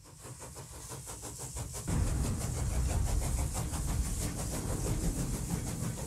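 Steam train chugging: a fast, even rhythm of hissing chuffs over a low rumble, fading in and growing much louder about two seconds in.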